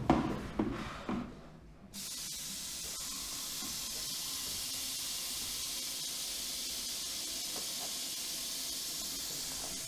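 A few short knocks, then water from a tap starts suddenly about two seconds in and runs steadily into a sink.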